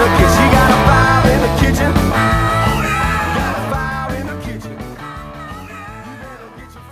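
Rock theme song with guitar playing out its ending, fading steadily over the last few seconds.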